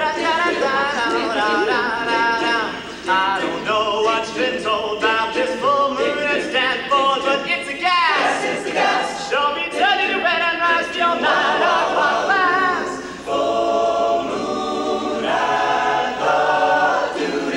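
All-male a cappella group singing a song with several voices in harmony, no instruments.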